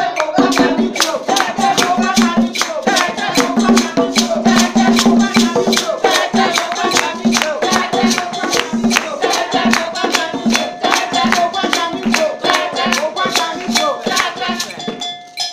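Voices singing over a shaken rattle that keeps a fast, steady beat of about four strokes a second.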